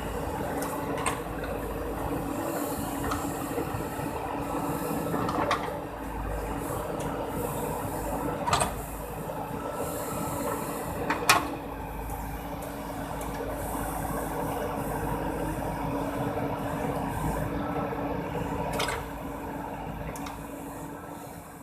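JCB 4DX backhoe loader working, its diesel engine running steadily, with several sharp metallic knocks from the digging gear, the loudest about eleven seconds in.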